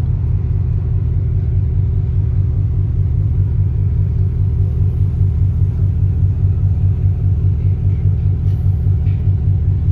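A ship's engine running under way with a steady low drone.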